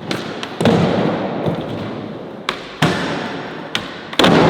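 Skateboard rolling, with three sharp impacts of the board: about half a second in, near three seconds, and near the end. After each impact a loud rolling rumble fades away.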